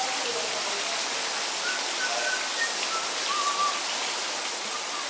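Small pond fountain's spray falling back onto the water: a steady, even splashing hiss.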